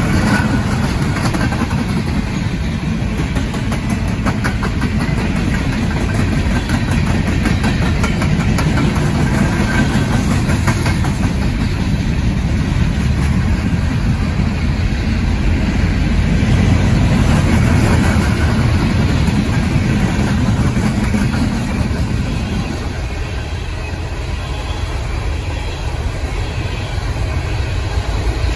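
Freight train passing: heavy diesel locomotive engine sound mixed with the rumble of rolling rail cars, dipping a little in loudness past the middle and rising again near the end.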